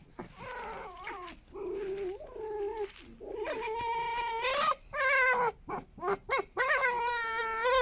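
Foxes giving a series of squeaky, whining calls, softer at first and then louder and more drawn out from about halfway, the longest lasting over a second. These are the squabbling calls foxes trade when arguing.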